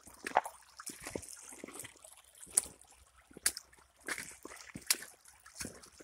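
Footsteps sloshing and splashing through a shallow, stony creek, an uneven step about every three-quarters of a second.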